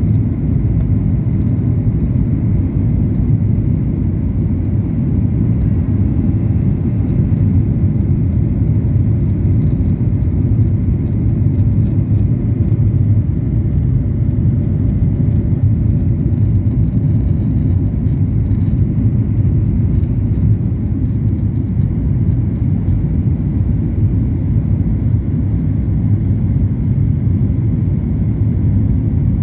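Airliner cabin noise during landing: a steady, loud, low rumble of engines and rushing air heard from inside the cabin.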